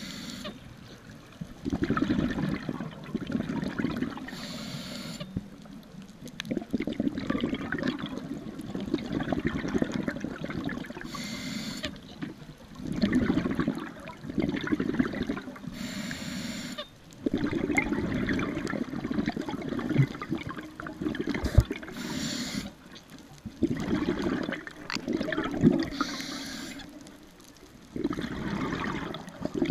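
Scuba diver breathing through a regulator underwater: a short hiss of inhaled air about every five seconds, each followed by a longer rush of exhaled bubbles.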